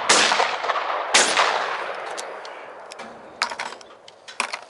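Shotgun firing 24-gram Energy target cartridges: two shots about a second apart, each ringing out and fading slowly. A few light clicks and knocks follow near the end.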